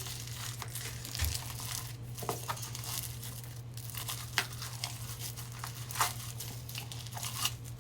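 Crunchy Snow Fizz textured slime being squished and kneaded by hand, giving a run of small crackling, crinkling pops over a steady low hum.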